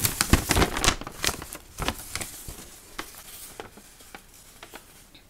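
A paper instruction sheet rustling and crackling as it is unfolded and handled, loudest in the first two seconds and dying away toward the end.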